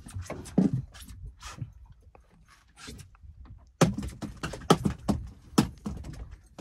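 Handling noise: a run of knocks, thuds and light clinks, with a denser cluster of sharper knocks in the second half.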